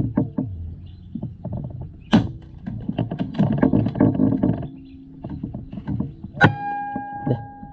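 Air rifle shooting at a duck: a sharp crack about two seconds in, then a louder one about six and a half seconds in that rings on with a metallic tone for about a second. Low crackling handling noise between the two.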